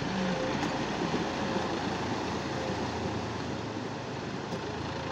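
A John Deere tractor's diesel engine running steadily as it drives through shallow river water, with the water churning and splashing around its wheels.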